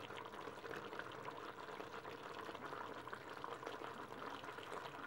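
Chicken and sauce simmering in the open pot of a Moulinex Cookeo multicooker on its browning setting: a faint, steady bubbling.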